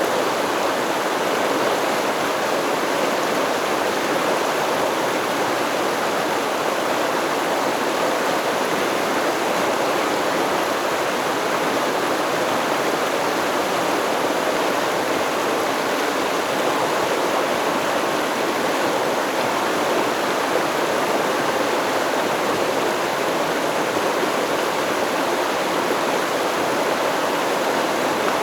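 Stream water flowing in a steady, even rush, with no other sounds.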